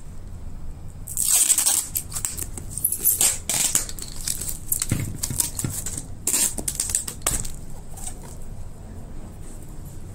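Plastic packaging on a taped, stretch-wrapped cardboard box being handled and pulled: a run of crackling, ripping bursts, loudest about a second in and about three seconds in.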